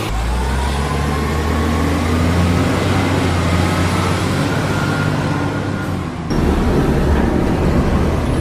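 Heavy diesel truck engine sound running steadily, its pitch rising over the first second or so. It breaks off briefly about six seconds in and comes back.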